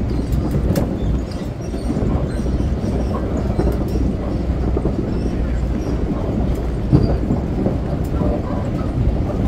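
Boardwalk tram rolling along the wooden boardwalk, heard from aboard: a steady rumble of its wheels over the planks with scattered light clicks.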